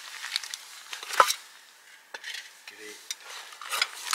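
Rummaging through a soft bag of food and cooking gear: rustling with small clinks and knocks, and one sharp knock about a second in.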